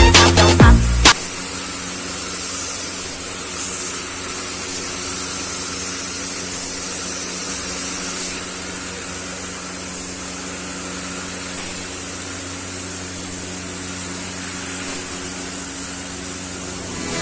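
Spray-painting equipment running steadily: an even air hiss over a low machine hum. Background music plays for about the first second, then cuts off.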